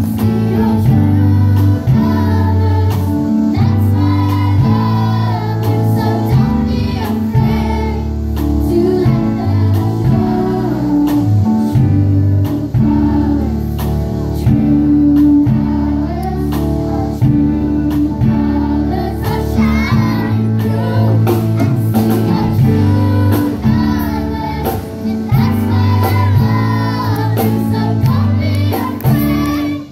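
Live music: a choir of children and adults singing together into microphones over a band with drums and a steady bass line.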